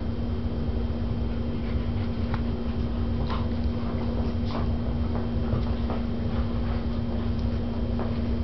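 An Afghan hound and a whippet wrestling at play: scattered short scuffles and clicks over a steady low hum.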